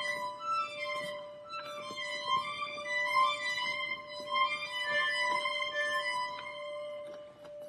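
Violin playing a melody of changing notes over a steady, unbroken held note.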